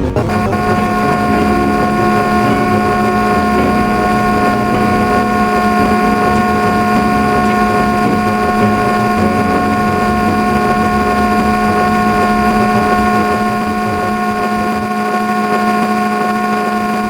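Ceiling fan running: a steady hum with several fixed tones over a rushing of air, dropping slightly in level near the end.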